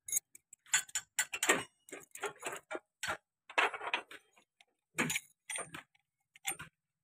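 Steel parts of a Mahindra Novo 605 tractor's rear hydraulic control clicking and clinking together as a shaft is fitted into its cast housing: irregular light taps and knocks, a few with a short metallic ring.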